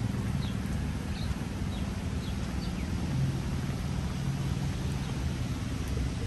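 City street ambience in the rain: a steady hiss of rain and wet traffic with a low engine rumble underneath. Short, faint, high chirps come and go every half second or so.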